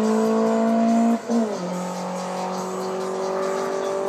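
Car engine at full throttle during a quarter-mile drag run, its pitch climbing, then a gear change about a second in drops it lower before it pulls on steadily.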